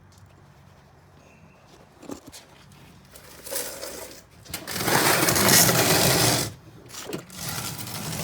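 Wrench and metal parts working on a motorcycle's rear chain adjuster: a single click about two seconds in, then rapid mechanical rattling. The rattling is loudest for about two seconds in the middle and stops abruptly.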